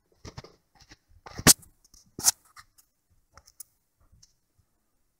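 Handling noise from a handheld camera: a scatter of small clicks and rustles, with two louder sharp knocks about a second and a half and two seconds in, then a few faint ticks.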